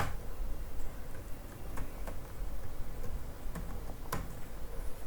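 Computer keyboard keystrokes: a handful of single, separate key clicks spaced irregularly about a second apart, over a low steady hum.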